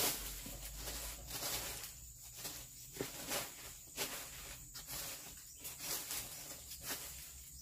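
Irregular light knocks with rustling, a few each second or so, as pieces of leftover wooden building timber are handled and set down.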